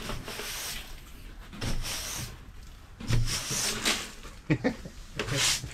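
Stiff-bristled broom sweeping grit and debris, in a few separate brushing strokes with short pauses between them.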